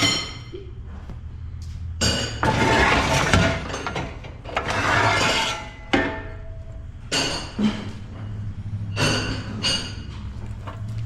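A series of sharp metallic clinks and clanks that ring after each strike, with two longer scraping rushes early on, over a steady low engine hum.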